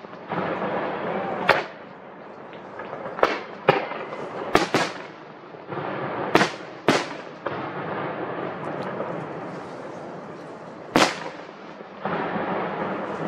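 Aerial firework shells bursting overhead: about eight sharp booms at irregular intervals, several close together around the middle, with a steady wash of noise between them.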